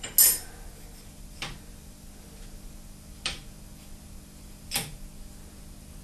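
Steel setup pieces (sine bar and parallel) clicking against a lathe's compound slide as they are handled and checked: four sharp metal clicks, irregularly spaced, the first the loudest.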